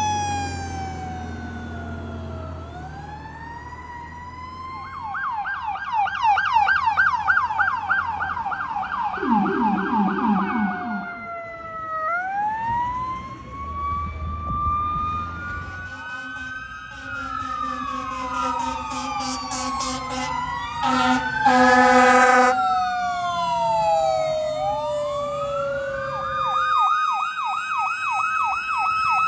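Fire apparatus responding with electronic sirens, switching between a slow rising-and-falling wail and a fast yelp. A loud horn blast comes about two-thirds of the way through.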